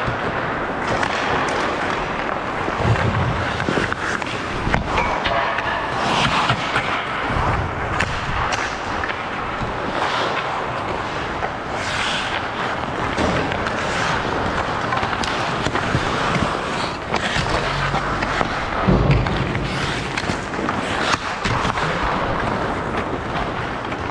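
Ice hockey play: skate blades scraping and carving on the ice, with scattered sharp knocks of sticks and puck.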